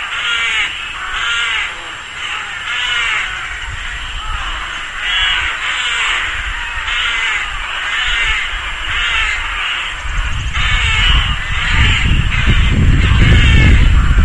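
Rook colony: many rooks calling at once, harsh overlapping caws. A low rumble joins about ten seconds in.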